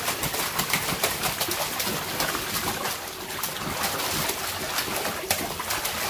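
Water splashing and slapping in a small inflatable paddling pool as a toddler beats the surface with his hands and kicks, many quick irregular splashes.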